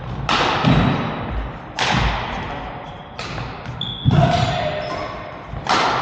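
Badminton rally: about five sharp racket strikes on the shuttlecock, roughly a second to a second and a half apart, each ringing on in the hall, with low footfall thuds on the court and a few short squeaks.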